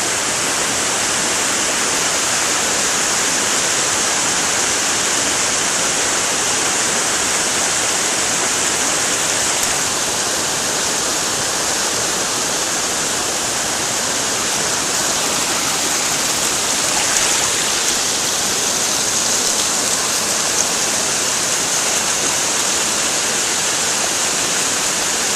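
Mountain waterfall thundering steadily, a dense hiss of falling water.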